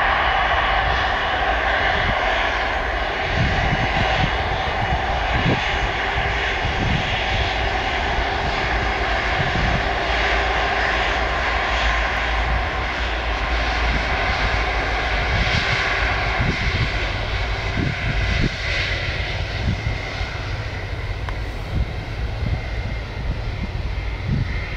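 Airbus A330-200's two Rolls-Royce Trent 700 turbofans at taxi power as the airliner rolls past, a steady whine over a low rumble that eases off slightly near the end.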